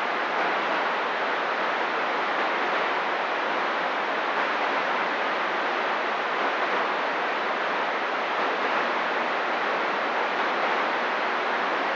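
Steady radio static: the hiss of a CB receiver with the squelch open between transmissions on 27.025 MHz.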